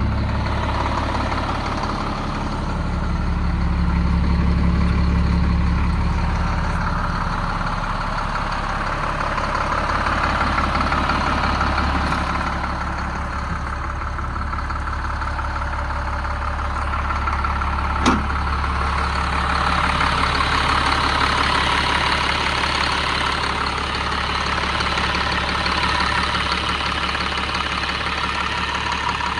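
Caterpillar C7 diesel engine of a Kenworth T300 idling steadily after a cold start, with one sharp click about eighteen seconds in.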